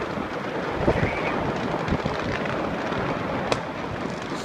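Many distant fireworks going off together: a steady rumble of bursts, with a few sharper pops about one, two and three and a half seconds in.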